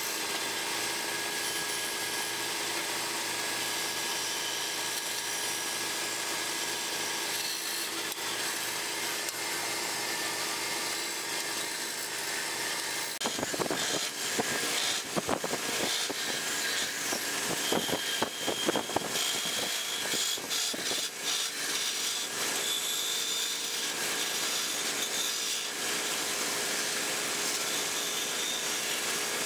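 Wood lathe running with a steady hum while a hand-held turning tool scrapes and cuts the spinning wooden blank. About halfway through, louder, irregular scraping comes in as a long tool hollows out the end grain of the goblet's cup.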